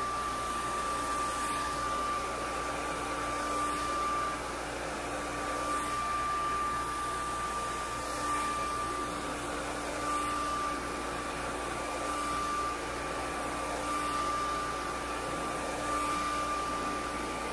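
Handheld hair dryer running steadily: a rush of air with a constant high whine, its level wavering slightly as it is moved through the hair.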